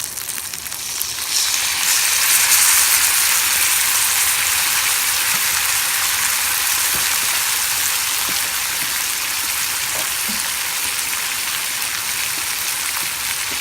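Soy-sauce-and-mirin kabayaki sauce hitting a hot pan of sardines over a campfire: the sizzling surges about a second and a half in, then slowly eases as the sauce bubbles and reduces.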